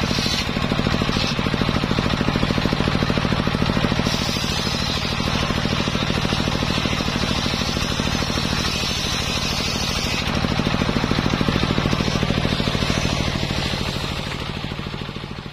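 Engine-driven homemade circular saw ripping jackfruit wood. The engine runs steadily with a fast, even beat, and the blade's cutting hiss swells and eases as the beam is fed through. The sound fades out near the end.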